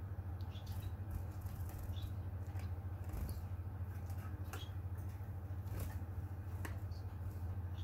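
Society finches giving short, high chirp calls every second or so, over a steady low hum in the room.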